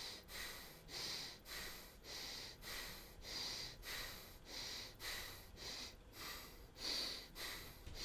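Powerful, rhythmic breathing: quick forceful inhales and exhales follow one another at a little over one breath a second, paced to shoulder shrugs, rising on the in-breath and dropping on the out-breath.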